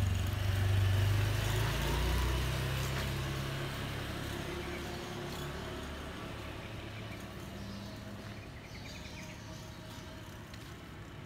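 A motor vehicle's engine hums close by at first, then fades away steadily over several seconds, leaving faint street noise.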